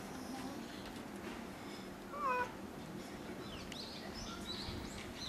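A domestic cat meows once, a short bending call about two seconds in. Faint high chirps follow in the later part.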